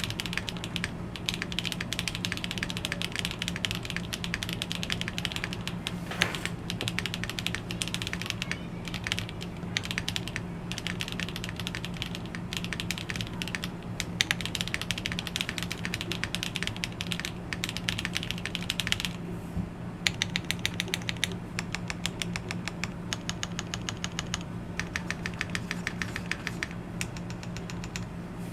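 Typing on a plateless MK870 mechanical keyboard with JWK Black linear switches on cream stems: a fast, continuous run of keystroke clacks. A steady low hum runs underneath.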